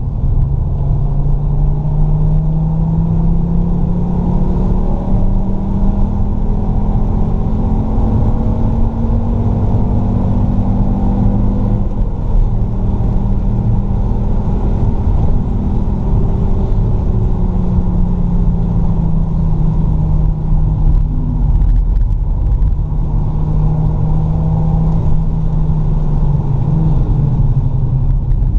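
Fiat Stilo Abarth's 2.4-litre five-cylinder engine under way at track speed, heard from inside the car over a heavy low road rumble. The engine note rises and falls in long, slow sweeps.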